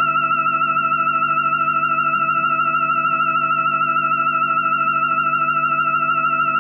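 Electronic robot sound effect: a steady high tone with a fast warble, held over a low pulsing hum, starting abruptly.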